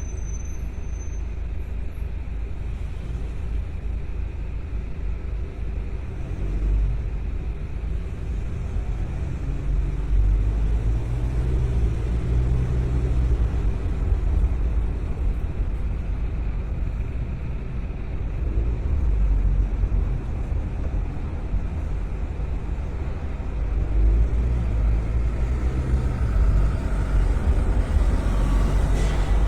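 Car driving through city streets: a steady low engine and tyre rumble, with the engine note growing louder as it pulls away about ten seconds in and again near the end.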